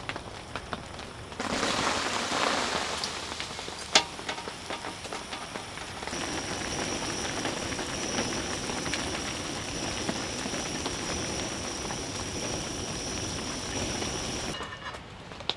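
Steady patter of rain, in several short stretches, with a sharp knock about 4 seconds in. From about 6 seconds until just before the end, a thin high whine sits over the rain.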